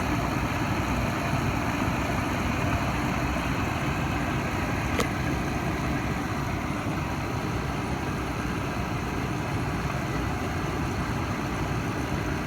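Mercury Grand Marquis V8 idling steadily during an AC refrigerant recharge, the AC compressor not yet clicked on. A single sharp click about five seconds in.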